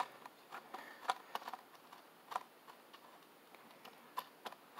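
Light, irregular clicks and taps of small parts being handled against a clear acrylic plate, about eight or nine sharp ticks spread unevenly with quiet between them.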